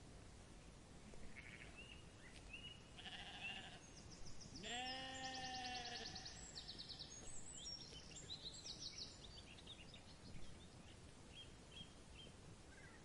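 A sheep bleats once, a long bleat about four and a half seconds in, with birds chirping in the background.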